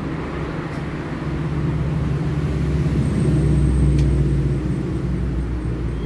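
Sharp top-load washing machine running after being started on spin, with no E2 error now that its water-level sensor has been replaced. It makes a low steady hum that swells toward the middle and eases off, with a single click about four seconds in.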